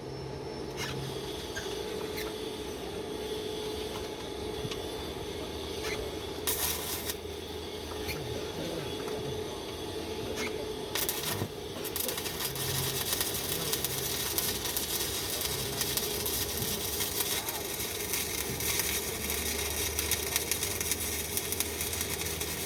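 Arc welding on a hydrant pipe: a steady crackling hiss of the arc that becomes fuller and louder about halfway through, with a few sharp clicks before that.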